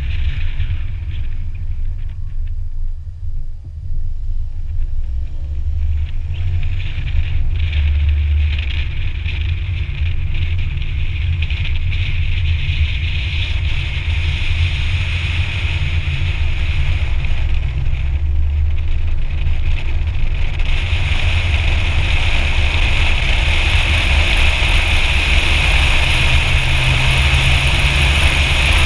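Wind buffeting the microphone of an action camera mounted outside a moving car, a heavy low rumble, with road and tyre noise. About two-thirds of the way through, the hiss grows louder and brighter as the car picks up speed.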